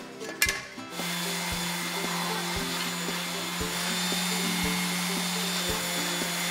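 Random orbital sander comes in about a second in and runs steadily, sanding a wooden knife handle, over background music with a steady beat.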